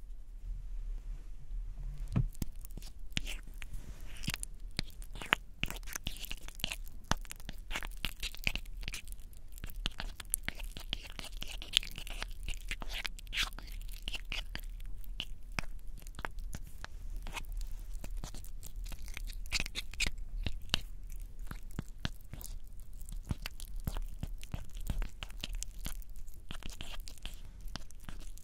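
Sticky, tacky crackling of clear petroleum-jelly lip balm in a metal tin as an applicator is dipped in and pulled out in stretching strands. It starts about two seconds in and continues as a dense run of short, irregular clicks.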